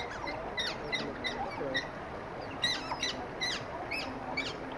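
Asian small-clawed otters chirping: a rapid series of short, high-pitched squeaks, each sliding downward in pitch, about four a second with a brief pause near the middle.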